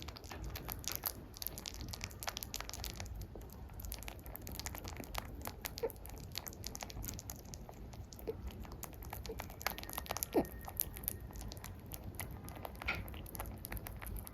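Pet rabbit chewing banana, a fast, steady run of small crunchy clicks from its teeth.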